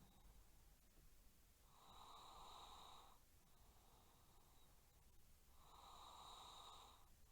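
A person snoring faintly in a slow, regular rhythm. Louder snores come about two seconds in and again about six seconds in, each lasting just over a second, with quieter breathing between them.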